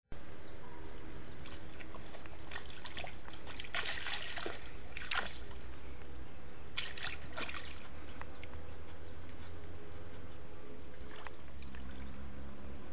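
Eight-month-old dog splashing as it wades and paws through a shallow stream, with the loudest splashes about four, five and seven seconds in, over a steady low rumble.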